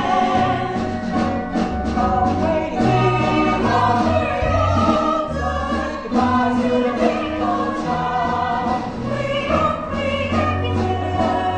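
A group of voices singing a musical-theatre chorus number over instrumental accompaniment with bass notes and a steady drum beat.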